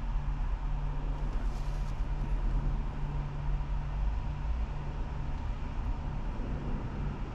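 Car engine idling, a steady low hum and rumble heard from inside the cabin.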